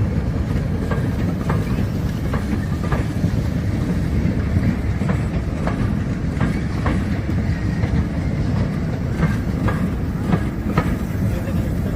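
Train running along the track: a steady low rumble with the wheels clicking over rail joints at irregular intervals.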